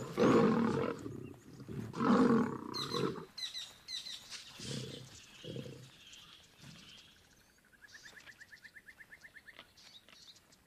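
Two male lions fighting, snarling and growling in two loud bouts in the first three seconds, then shorter, weaker growls that die away by about six seconds in.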